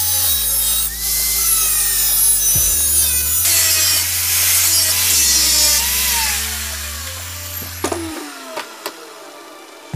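Angle grinder with a thin cut-off disc cutting through sheet metal: a loud, harsh hiss of the cut. About seven seconds in the cutting stops and the motor's whine falls as the disc spins down, followed by a few light knocks.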